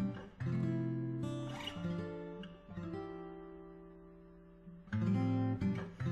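Acoustic guitar music: chords strummed a few times and left to ring out and fade between strums.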